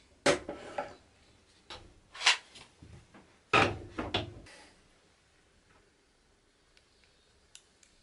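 Spring clamps being unclipped from glued-up wooden knife scales and set down with wood pieces on a workbench: a handful of clattering knocks, the loudest about a third of a second, two seconds and three and a half seconds in.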